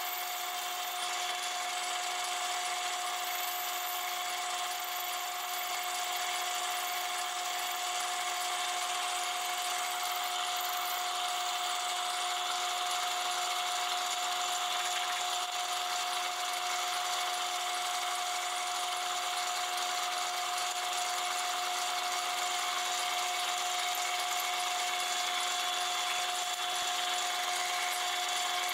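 Metal lathe running steadily with a twist drill in the tailstock chuck drilling into a spinning naval brass gear blank: an even machine sound with a constant tone.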